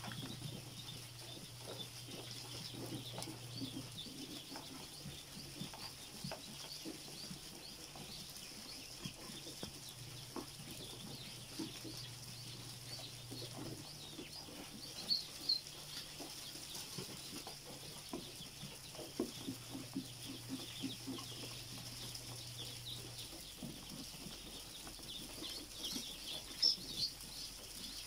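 A large brood of ducklings peeping, many high calls overlapping constantly, with a few louder peeps midway and near the end.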